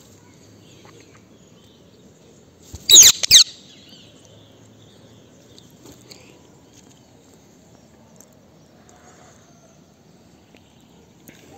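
A songbird sings one short, loud phrase of quick downward-sweeping whistles about three seconds in, over a faint steady background.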